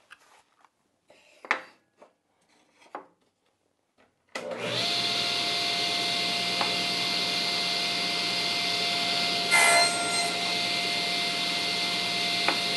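Table saw switched on about four seconds in, its motor coming up to speed and then running steadily with a whine. There is a brief louder burst about ten seconds in. Before the start there are only a few faint handling clicks.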